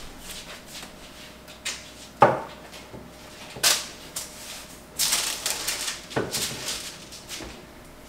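Metal baking tray knocking on the kitchen counter and baking paper crinkling as they are handled: a few separate sharp knocks, then a longer spell of rustling about five seconds in.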